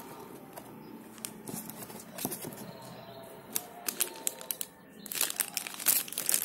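Crinkly plastic sachet strip being handled: scattered light crackles at first, then dense crinkling from about five seconds in as the strip is lifted and bent.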